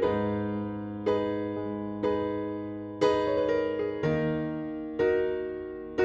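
Background piano music: soft chords struck about once a second, each ringing and fading before the next.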